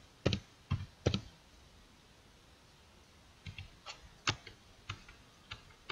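Typing on a computer keyboard: three keystrokes in the first second, a pause of about two seconds, then a quicker run of keystrokes.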